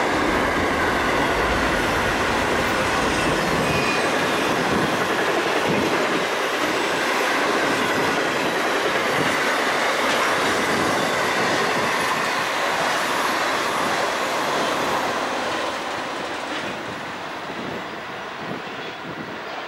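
Container wagons of a long intermodal freight train rolling past close by, their steel wheels rumbling and clattering on the rails with a faint high squeal. The noise eases off over the last few seconds.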